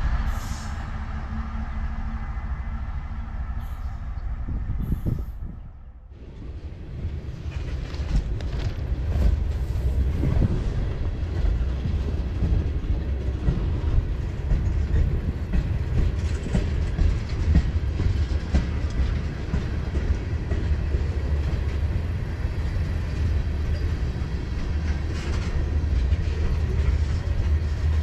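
Freight train's tank cars rolling past close by: a steady rumble of wheels on the rails. The sound drops away briefly about six seconds in, then the rumble comes back and holds.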